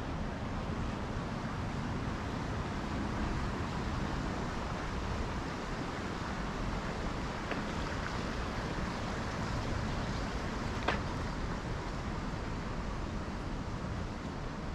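Steady outdoor background rush of a city street with distant traffic, and one sharp click about eleven seconds in.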